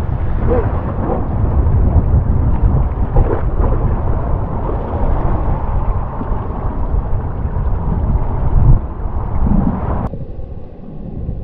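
Surf breaking and surging against shoreline rocks, with water splashing and wind rumbling on the microphone. About ten seconds in the sound cuts abruptly to a quieter, duller rumble.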